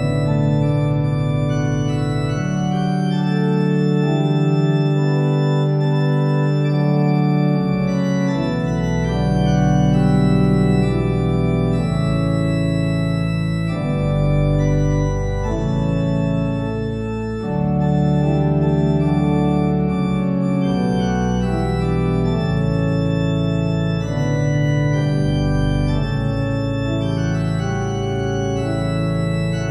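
Organ playing slow, sustained chords, each held for a second or more before moving to the next.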